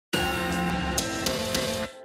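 Intro sting music: a loud, dense chord that starts abruptly, with three sharp hits around the middle, cutting off suddenly just before the end.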